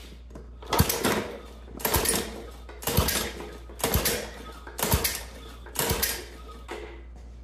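Six pulls on the recoil starter cord of a Tecumseh lawn mower engine, about one a second, each a sharp snap followed by a short rasping whir as the engine is cranked over without starting. The cranking is a spark check, and spark is present.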